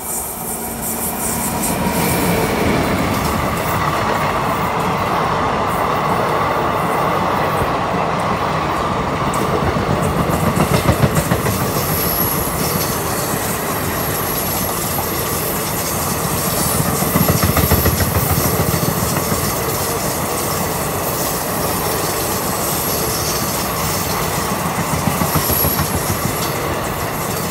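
Indian Railways passenger coaches of an electric-hauled express rolling past at speed: a steady, loud rumble of steel wheels on rail with a fast, continuous clatter from the wheels.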